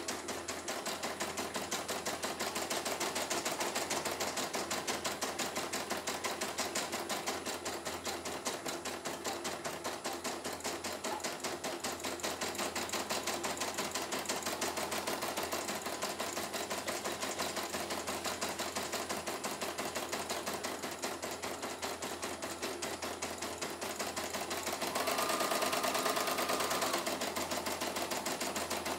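CNY E900 computerized embroidery machine stitching, a rapid, even run of needle strokes. Near the end there is a brief louder stretch with a steady whine.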